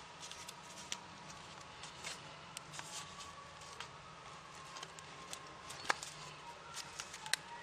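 Origami paper rustling and crackling as it is folded and creased by hand: scattered light crinkles and clicks, with two sharper snaps about six and seven seconds in.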